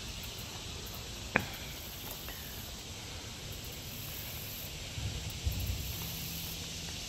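Woodland insect chorus: a steady high-pitched pulsing trill of insects. A single sharp click comes about a second and a half in, and a few low bumps come around five seconds in.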